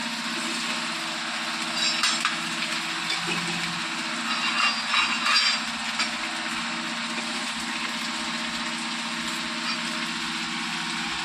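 Cauliflower pieces frying in oil in a pan, stirred or scraped a few times, about 2 seconds in and again around 5 seconds, over a steady low hum.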